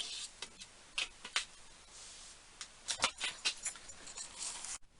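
Scattered light clicks, taps and rustles of hands handling things at a workbench, with the sharpest taps about a second in and again around three seconds.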